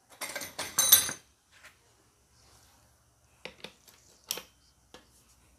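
Metal hand tools clinking: a dense clatter with a ringing edge for about the first second, then three or four single sharp clicks later on, as the bolt holding a motorcycle engine's gear-shift star is tightened.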